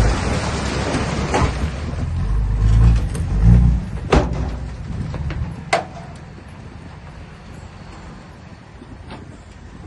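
Diesel engine of heavy earthmoving machinery working under load, surging loudly twice in the first four seconds. Sharp metallic clanks come at about four and six seconds in, then the engine settles to a quieter, steady running.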